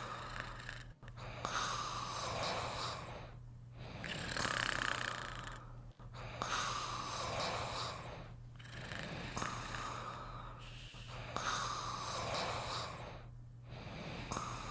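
Snoring in a slow, even rhythm, one snore about every two and a half seconds with a brief pause between, over a steady low hum.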